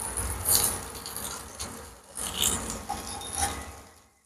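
Thin raw potato slices being laid by hand into a hot oiled non-stick frying pan, sizzling softly in about three short spells as slices go down, with light rubbing and handling sounds.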